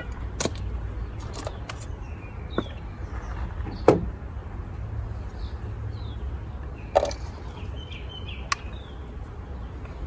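Handling noises from swapping an ignition coil (pencil coil) on a Mini's engine: a handful of sharp clicks and knocks as the old coil is pulled and the new one pushed into place, the loudest about four seconds in, over a low steady rumble.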